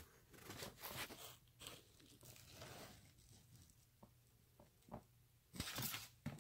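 Faint rustling and crinkling as the nylon tool bag and its cardboard hang tag are handled, with a louder burst of rustling near the end.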